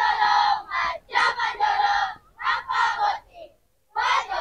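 A team of junior-high schoolgirls chanting together in unison, loud and high-pitched, in short shouted phrases with brief pauses between them, as part of a marching-squad formation routine.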